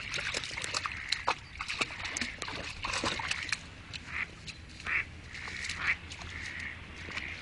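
Wild ducks quacking in short calls, about one or two a second in the second half, over scattered splashes and clicks from a dog wading among rocks in the shallows.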